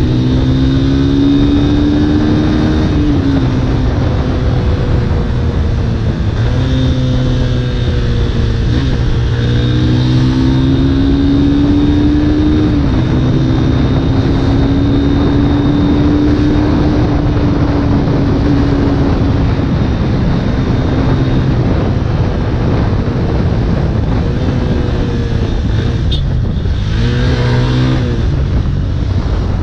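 Yamaha motorcycle engine pulling through the gears: its pitch climbs, then drops at each upshift, again and again. Heavy wind rush on the camera microphone runs under it.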